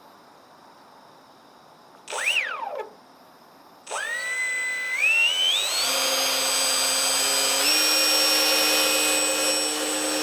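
RC motor glider's motor and propeller whining: a short blip of throttle about two seconds in, rising and falling in pitch, then the motor spun up again, climbing in pitch in several steps to a high steady whine that cuts off at the end.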